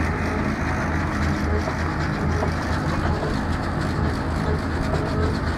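Tourist road train driving along steadily, heard from aboard one of its open carriages: an even, low engine hum with the rumble of its wheels on the road.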